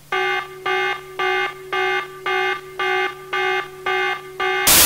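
Electronic alarm beeping: a buzzy tone repeating about twice a second, nine beeps in all. Near the end the beeping is cut off by a sudden burst of loud static.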